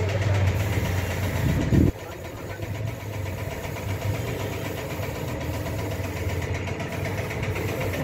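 Motor and drive of a large industrial drum washing machine running with a steady mechanical hum. The low hum swells just before two seconds in and then drops off suddenly, leaving a lighter, even running sound.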